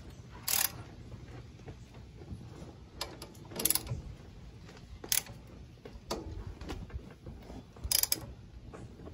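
Hand wrench tightening front brake caliper bolts: several separate sharp metallic clicks and clinks a second or more apart as the wrench is fitted and pulled, the loudest near the end.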